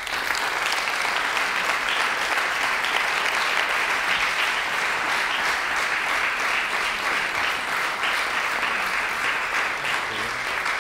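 Audience applauding, starting suddenly as the poem ends and holding steady throughout.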